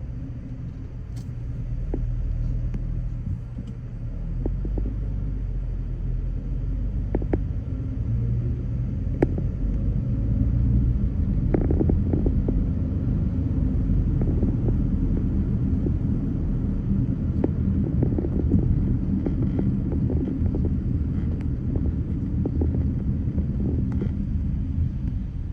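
Low, steady rumble of a car driving in traffic, its engine and road noise getting louder a couple of seconds in and again about ten seconds in, with a few faint clicks.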